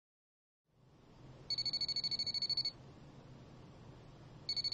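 Smartphone ringing with an incoming call: a high, rapidly trilling ring in bursts of a little over a second, the first about a second and a half in and the second starting near the end.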